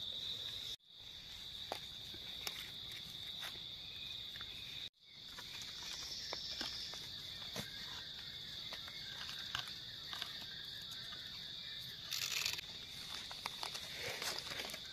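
Insects calling steadily in one high tone, with faint crackles and a brief rustle of dry leaf litter being handled on the forest floor. The sound cuts out completely twice, briefly.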